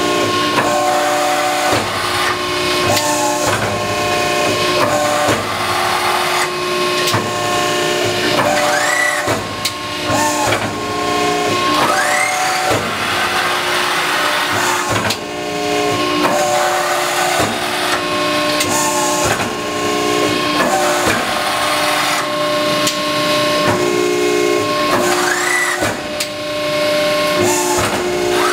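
Cincinnati 135-ton hydraulic press brake running under power: a steady machine whine made of several tones that change every second or two, with short rising-and-falling squeals.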